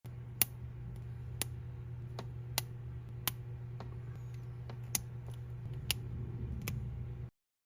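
About eight sharp plastic clicks at uneven intervals, from small toy-brick minifigure parts being handled, over a steady low hum. The sound cuts off suddenly near the end.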